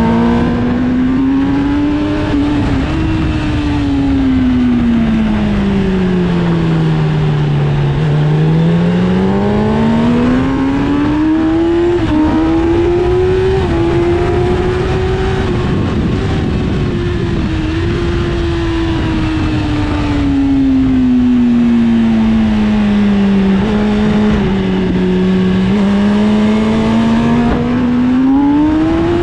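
Inline-four sport bike engine heard onboard at track speed, its pitch climbing and falling slowly as the rider accelerates and slows through the turns, over heavy wind rush.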